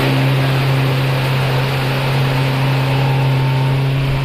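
Hidea 60 HP outboard motor running steadily at speed, pushing an 18-foot fibreglass boat. It gives a constant low engine hum over a rushing hiss.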